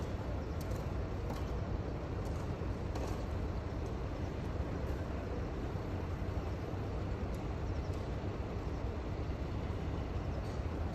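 Steady low rumble of outdoor background noise, with a few faint ticks in the first few seconds; no cat calls are heard.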